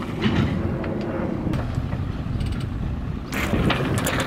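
A boat's motor running steadily as a low rumble, with wind on the microphone. A short clatter of clicks comes near the end.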